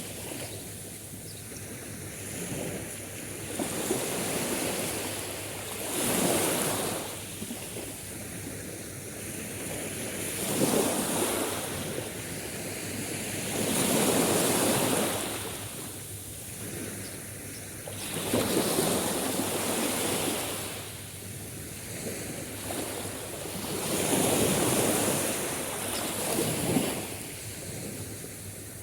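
Sea waves breaking and washing on the shore, the surf swelling and falling back in slow surges every four to six seconds.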